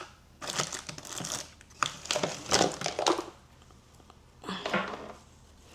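A bag crinkling and rustling in irregular spurts as it is handled, with a second short rustle near the end.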